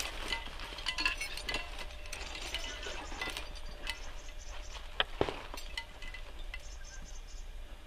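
Metal climbing gear on a harness clinking and scraping as a climber moves up snowy rock: irregular sharp clicks, with a louder knock about five seconds in.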